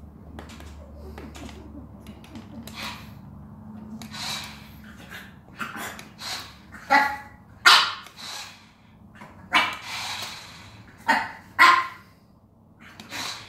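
French bulldog barking and yipping in a string of short, sharp barks, starting about four seconds in, with the loudest near the middle and near the end.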